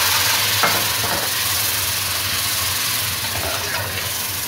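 Onions and spice masala frying in hot oil hiss steadily as a splash of water hits the oil and boils off as steam, while a steel ladle stirs. There is a single knock about half a second in, and the hiss eases slightly toward the end.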